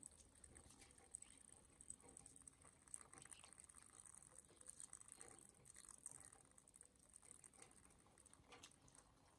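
Near silence, with faint scattered ticks and rustles.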